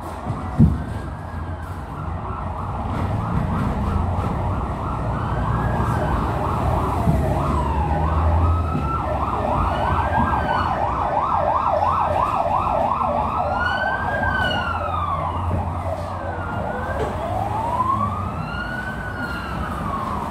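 Emergency-vehicle siren sounding a fast yelp, about four warbles a second, then switching to a slow rising-and-falling wail in the second half. It sounds over the steady low rumble of a moving tram, with one sharp knock just after the start.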